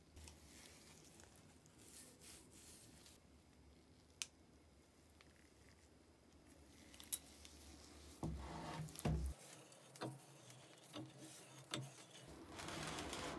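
Gloved hands handling a rusted, seized cast-iron bench vise: faint rubbing and scraping of metal, with a few sharp metallic clicks and knocks from the loose handle bar, more of them in the second half, and louder rubbing near the end. The vise is stuck and does not work.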